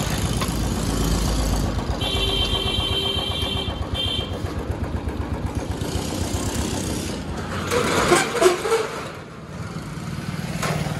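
Motorcycle engine idling with a pulsing low rumble that fades after about seven seconds. A brief high-pitched tone sounds about two seconds in.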